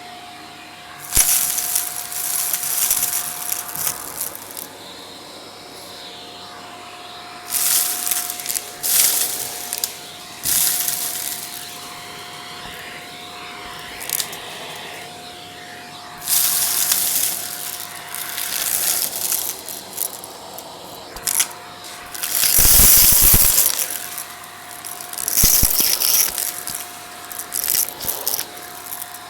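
Vacuum cleaner running with a steady whine while its brush attachment is pushed over the stairs in strokes, each stroke a loud crackly hiss of suction and bristles lasting one to a few seconds, about five times.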